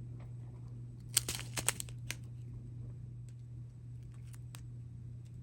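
Small plastic bags of diamond-painting drills crinkling as they are handled, with a quick run of crackles about a second in and a few light clicks near the end, over a steady low hum.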